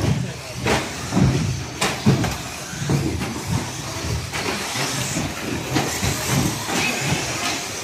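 Electric 2WD short course RC trucks racing on an indoor carpet track: a steady whir of motors and tyres, broken by several sharp knocks as trucks land and strike the track.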